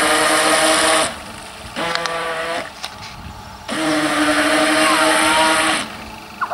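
Radio-controlled speedboat's motor whining at full throttle over the hiss of water spray, in three runs: the first cuts off about a second in, a short burst follows, then a longer run of about two seconds.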